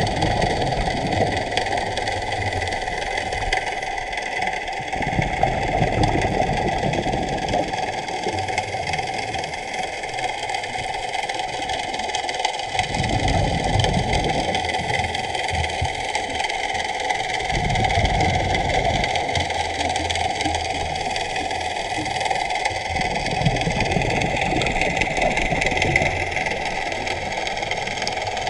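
Underwater sound picked up through a diving camera's housing: a steady, muffled mechanical drone like a distant motor, with a low rumble of scuba exhaust bubbles from a regulator swelling up every few seconds.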